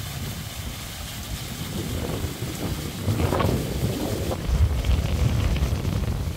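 Wind buffeting the microphone, a low rumble that rises and falls in gusts, with a short brighter rush of noise a little past the middle.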